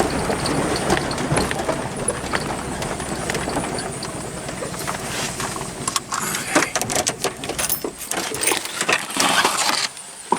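Loose metal parts and tools clinking and clattering as they are handled and rummaged through. The clatter is dense in the second half, over a low rumble that fades about halfway.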